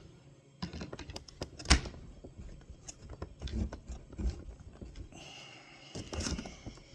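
Scattered light clicks and knocks of a PCP air rifle and its parts being handled after reassembly, with one sharper click a little under two seconds in and a short rubbing sound near the end.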